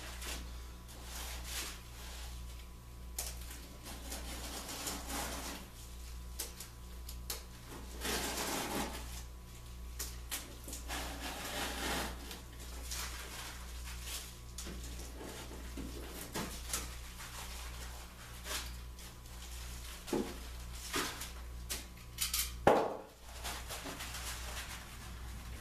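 Utility knife slicing through the backing of a peel-and-stick carpet tile in short scraping strokes, with tools clicking as they are picked up and set down on a plywood bench. A sharp knock comes near the end, and a steady low hum runs underneath.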